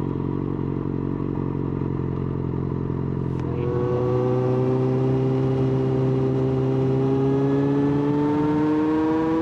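Yamaha XJ6's inline-four engine holding steady revs. About four seconds in, the throttle opens and the engine note gets louder and climbs slowly and steadily in pitch as the bike accelerates through a gear.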